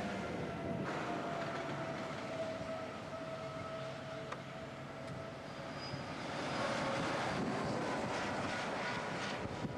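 Heavy diesel lorries passing on a motorway. First an engine drone whose pitch slowly falls as one truck moves away, then a second truck passes close in the second half with a swelling rush of tyres and wind.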